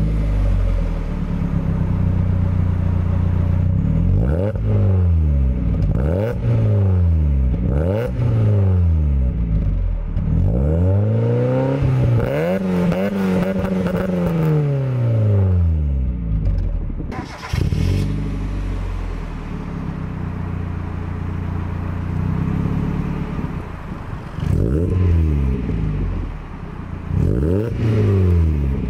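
Mazda MX-5 (first-generation Miata) four-cylinder engine running through a freshly fitted stainless centre pipe and back box. It idles and is blipped repeatedly, with one longer, higher rev about halfway through before it drops back to idle.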